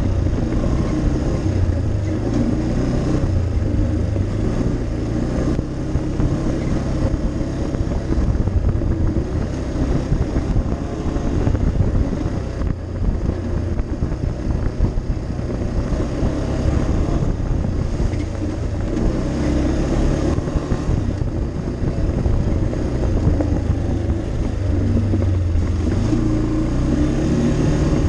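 ATV engine running steadily while riding along a dirt trail, its pitch rising and falling a little with the throttle.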